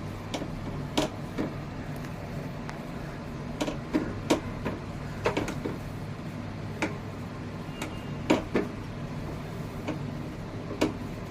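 A cooking utensil knocking and clicking against a pan: about a dozen sharp, irregular taps over a steady low hum.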